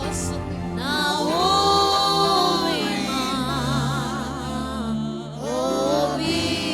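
Gospel worship singing: a voice holding long, wavering notes with vibrato over steady low accompaniment.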